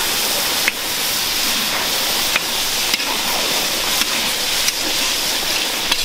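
Steady sizzling hiss of coconut milk poured into a hot karahi of rice and peas, with a metal spoon clicking against the pot a few times as it is stirred.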